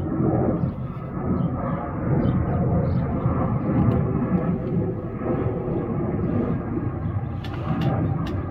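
Airbus A330neo's Rolls-Royce Trent 7000 turbofans at climb power after take-off: a steady low jet rumble that slowly swells and fades.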